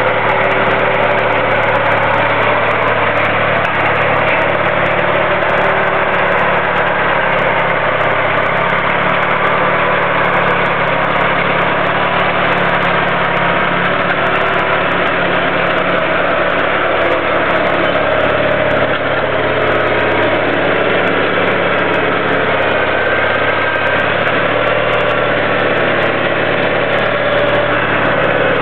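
John Deere garden tractor's engine running steadily at a constant speed, with no revving.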